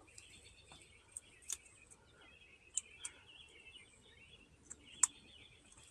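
Faint clicks and light handling noises of a new LED fog-light bulb being picked up and readied for its socket, the sharpest click near the end. Birds chirp faintly in the background.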